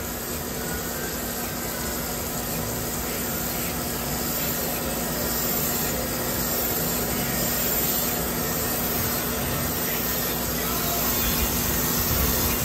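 Storm Vulcan 15AW crankshaft grinder running on a 454 big-block Chevy crankshaft, with a steady hum under an even rushing noise that grows slightly louder.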